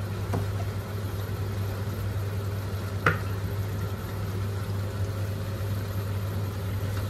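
Mutton kofta masala simmering in a pot, sizzling and bubbling softly now that its water has cooked off and the oil has risen to the top. A steady low hum runs underneath, and there is one sharp tap about three seconds in.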